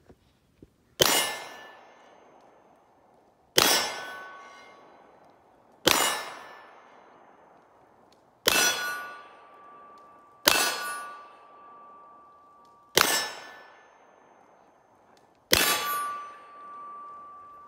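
Seven slow, evenly paced shots from a 9mm Glock 34 pistol, about two to two and a half seconds apart, each loud crack trailing off; several are followed by the ringing of a struck steel target.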